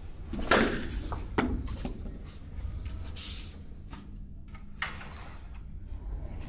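Katana practice: a sudden cut through a foam pool-noodle target about half a second in, a few soft knocks, a brief high swish a little past three seconds, and the blade being slid back into its scabbard.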